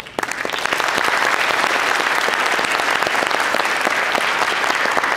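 Audience applause: a few scattered claps that swell within the first second into steady, full applause from a concert hall audience.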